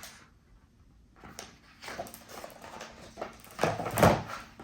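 Picture-book pages being turned and handled: a run of paper rustles and small clicks, loudest about four seconds in.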